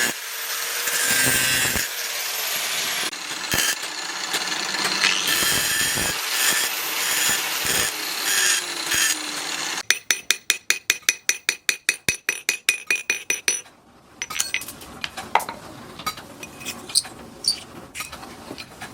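Knife-making metalwork: a power tool grinds steadily for about ten seconds, then stops suddenly and gives way to a fast, even run of sharp strokes, about five a second. Quieter scattered clicks and taps follow near the end.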